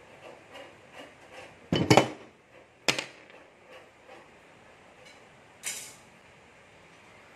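Metal clanks from TV wall-mount work: a loud clatter of impacts just under two seconds in, a sharp click a second later, and a short scrape near the end, after a few faint taps at the start.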